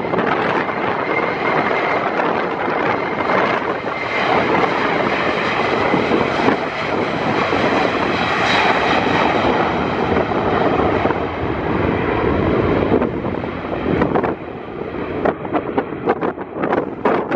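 Jet2 Boeing 737's jet engines running loud as the airliner departs, with a steady whine near the start and loudest about eight seconds in. Wind buffets the microphone near the end.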